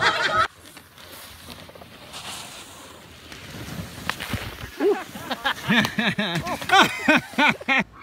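A soft rushing hiss, then a person's voice in a rapid run of short, loud pitched calls through the second half.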